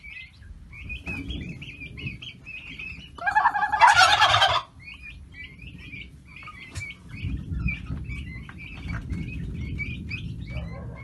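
Domestic turkey gobbling once, loudly, about a third of the way in, over a steady run of short high chirping calls.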